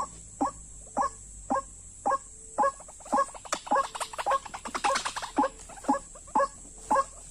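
White-breasted waterhen calling: a short call repeated evenly about twice a second, quickening into a rapid run of calls around the middle before settling back to the steady beat.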